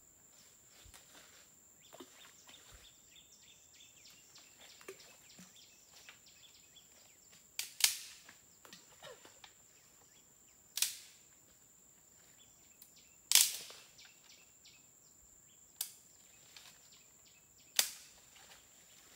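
A steady high-pitched insect drone, with five loud, sharp clicks a few seconds apart over it, starting about a third of the way in.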